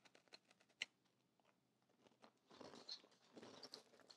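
Faint crunching of a crisp iced chai cookie being bitten and chewed: a few sharp cracks in the first second, the loudest just under a second in, then three short spells of crunchy chewing in the second half.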